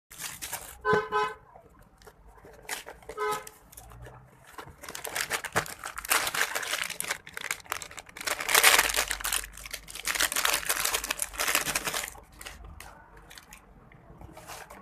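Two short squeaks as a round plastic container lid is worked off, then several seconds of rustling and crinkling as small items are handled and lifted out of a metal tin.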